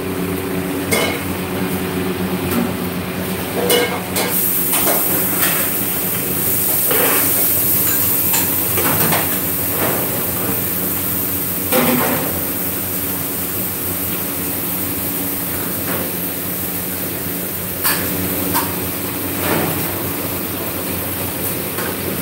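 Kitchen work noise: a steady mechanical hum with scattered sharp metal knocks and clinks, the loudest about twelve seconds in. A high hiss joins about four seconds in.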